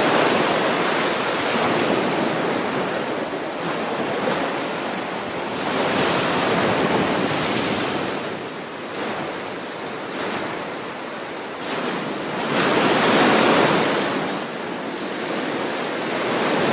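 Atlantic surf breaking and washing up a sandy beach, rising and falling in swells, the loudest about three quarters of the way through, with some wind on the microphone.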